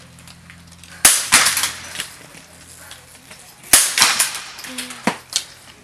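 Biathlon rifle fired twice, about two and a half seconds apart; each sharp shot is followed by a quick run of echoing cracks. Two fainter clicks come near the end.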